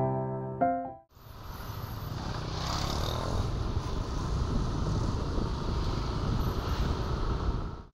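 Motorcycles and motor scooters riding past on a road, a steady engine and tyre noise, after a piano jingle that stops about a second in.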